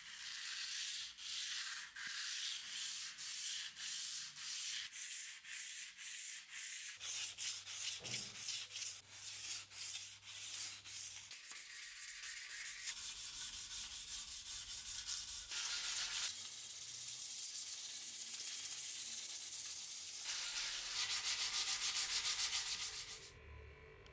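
Sandpaper rubbed by hand over the steel blade of a bardiche axe head, in rhythmic back-and-forth strokes. The strokes come a little over once a second at first and get quicker later on, then stop suddenly near the end.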